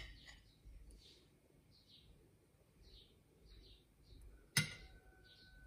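Faint high chirps, a few each second, with one sharp click about four and a half seconds in.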